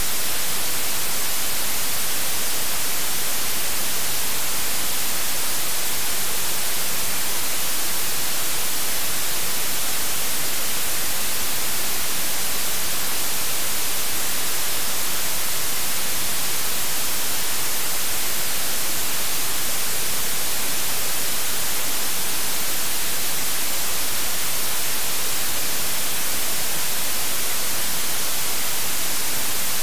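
Loud, steady static hiss like white noise, brightest in the treble and unchanging, with no voice or music in it.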